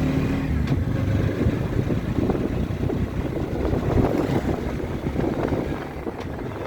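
Wind buffeting the microphone: an uneven low rumble with a faint steady engine-like hum in the first second.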